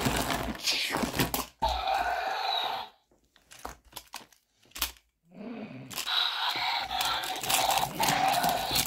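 Rough, crackly rustling and crunching in bursts a second or more long during toy play right at the phone's microphone. It breaks off for about two seconds near the middle, then runs on steadily.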